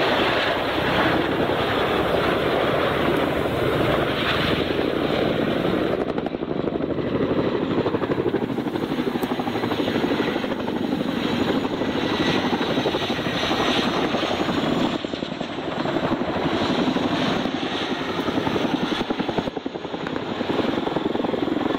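Boeing Chinook HC6 tandem-rotor helicopter flying a close, low display pass, its two rotors giving a fast, continuous chopping beat.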